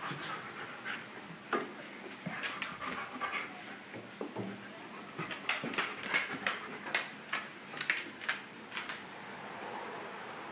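A dog panting in quick, uneven breaths.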